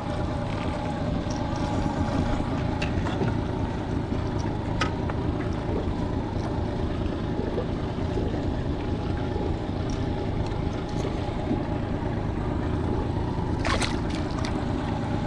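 Honda 30 hp four-stroke outboard motor running steadily, with water washing along the hull. A small pike splashes back into the water near the end.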